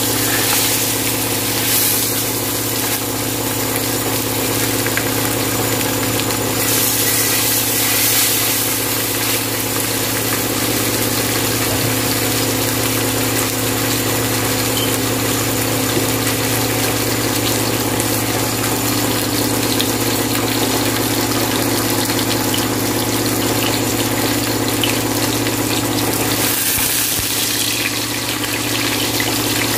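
Whole mackerel frying in oil on a grill pan, a steady sizzle that flares up briefly twice, over a constant mechanical hum.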